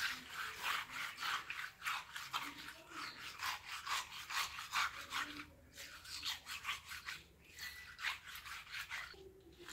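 Small wet fish rubbed by hand against a rough stone slab in quick repeated scraping strokes, several a second, with brief pauses. The rubbing strips off the fish's silvery scale covering to clean them.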